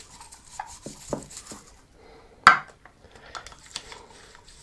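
Toothbrush scrubbing the plastic pump housing of an all-in-one CPU water cooler in a ceramic dish of water, with small clicks and knocks of the housing against the dish and one louder sharp knock about halfway through.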